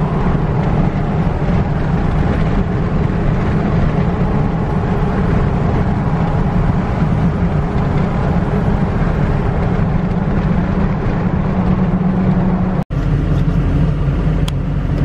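Inside the cab of a 2006 Ford F-250 with a 6.0 L Power Stroke turbo-diesel V8 and a straight-piped exhaust, cruising at highway speed: a steady low engine and exhaust drone mixed with road noise. It cuts out for an instant near the end.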